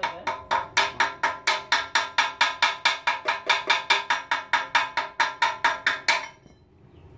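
Rapid, even metal-on-metal strikes with a ringing note, about five a second, at the pulley end of a rice thresher's steel toothed drum. They stop about six seconds in.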